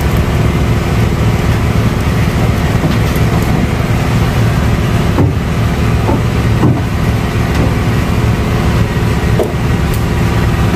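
Steady drone of an engine running, with a few light clicks over it.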